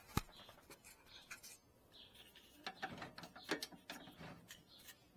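Faint clicks and small squeaks from an Excalibur scroll saw's tilt mechanism being worked by hand, busiest a little past the middle. The tilt is stiff and will not go further even after greasing the bearings.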